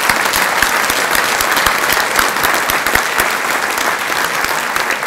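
Audience applauding: many hands clapping in a dense, steady round of applause.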